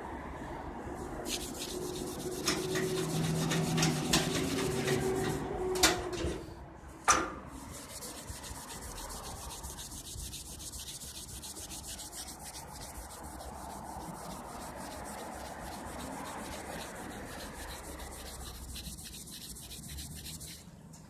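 Cloth rag rubbed back and forth over a chrome-plated steel handle, wiping off and buffing metal polish. The rubbing is louder for the first several seconds, with a low squeak and two sharp knocks about six and seven seconds in, then settles into quicker, quieter steady strokes.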